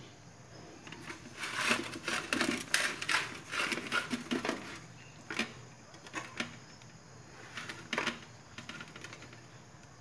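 Hands pressing and smoothing thick batter into an aluminium ring cake pan, the pan knocking and scraping against the aluminium pan set beneath it: a busy run of irregular taps and scrapes from about a second in until about five seconds, then a few single knocks.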